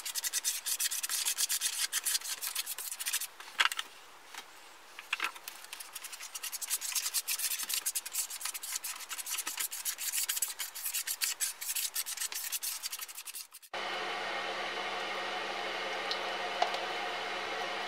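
Liquid epoxy resin being rubbed into birch end-grain wood slices by a gloved hand, with quick, continuous scrubbing strokes on the wood. About fourteen seconds in it cuts off abruptly to a steady hum.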